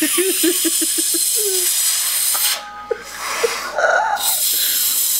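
Loud hissing breath forced out through the teeth by a man straining in an arm-wrestling match, with a quick run of short grunts in the first second and a half. The hiss breaks off for about a second midway, then comes again.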